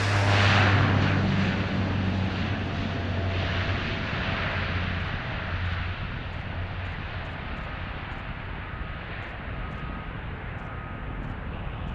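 Aircraft engines running with a steady low hum and a wide rush of noise. The sound is loudest about half a second in and slowly fades.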